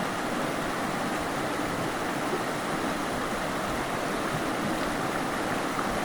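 Flowing water rushing steadily, an even, unbroken sound.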